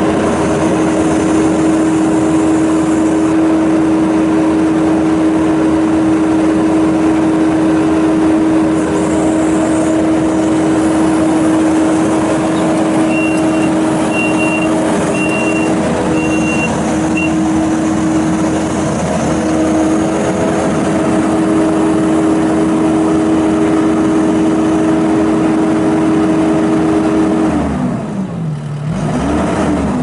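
2019 Kubota SVL75-2 compact track loader's four-cylinder diesel running steadily at high throttle while the machine drives and works its loader arms, with four short high beeps about halfway through. Near the end the engine speed drops sharply, then comes back up unevenly.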